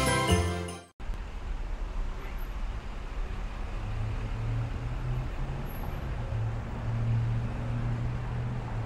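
Christmas music with jingle bells fades out about a second in, giving way to street traffic noise: a steady rumble with the low hum of a vehicle engine from about four seconds in.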